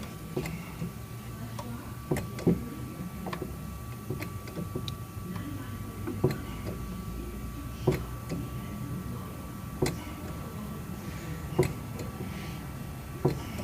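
Sharp short clicks or knocks, one every second or two, over a steady low hum.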